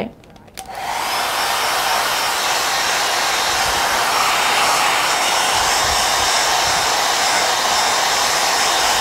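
Hair dryer switching on within the first second, then blowing steadily to dry wet glitter paint.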